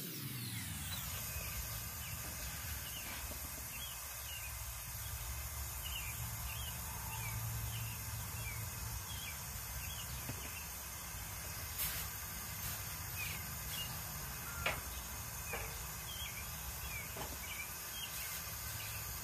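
Outdoor gas burner flame running with a steady low rumble, while small birds chirp again and again in the background. A couple of light knocks come in the middle.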